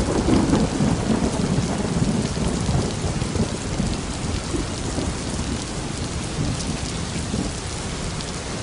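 Thunderstorm: thunder rumbling during the first couple of seconds and dying away under steady heavy rain.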